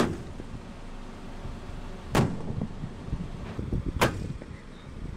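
Three sharp gunshot-like bangs about two seconds apart over a low rumble: bird-scaring shots fired to drive birds off an airport runway.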